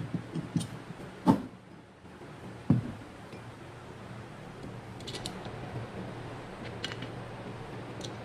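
Metal alternator parts knocking and clinking as they are fitted together by hand: a few sharp knocks in the first three seconds, the loudest about a second in, then fainter light clicks.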